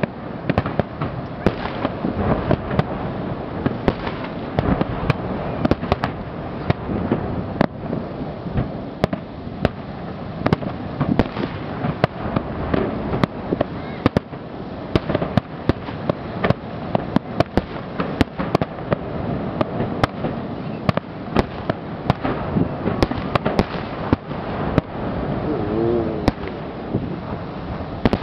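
Fireworks display: shells bursting in rapid, irregular succession, sharp bangs over a continuous rumble and crackle.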